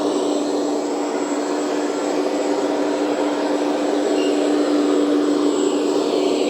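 1/14 scale RC hydraulic excavator running while its upper body swings round: a steady whine and hum from its brushless-motor-driven hydraulic pump, mixed with the engine sound of its onboard sound module.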